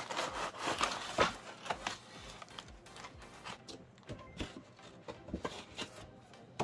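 Cardboard box being handled and opened: cardboard rubbing and scraping, loudest in the first second or so, then a few light taps and rustles of packaging.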